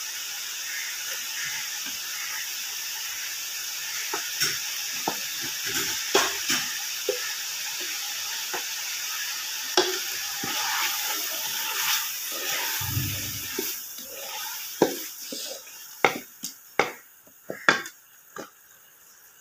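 Soaked chana dal frying in chicken masala in a pressure cooker pot, sizzling steadily while a wooden spoon stirs it, knocking and scraping against the pot; this is the dal being fried in the masala before water goes in. The sizzle dies down over the last few seconds, leaving separate spoon knocks.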